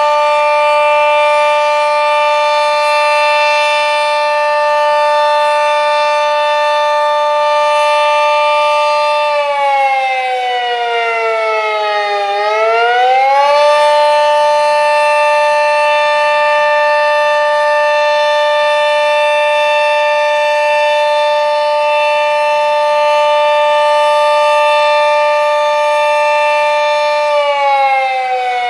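Sentry 40V2T dual-tone outdoor warning siren sounding loudly during a test, a two-note chord held steady. About a third of the way in its pitch slides down as the rotor slows, then climbs back up to full pitch, and near the end it slides down again.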